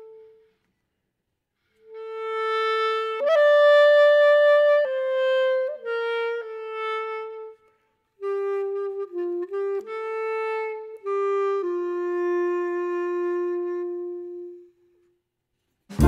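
Background music: a slow solo melody of held notes on a single instrument, starting about two seconds in, pausing briefly about halfway, and ending on one long low note.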